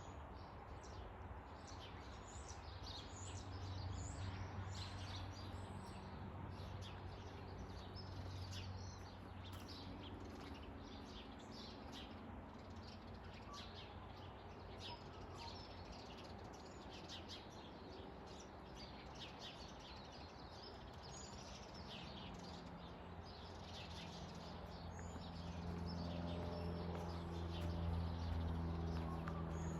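Forest birds chirping and calling, many short, quick calls overlapping throughout. Under them runs a low steady hum that swells in the last few seconds.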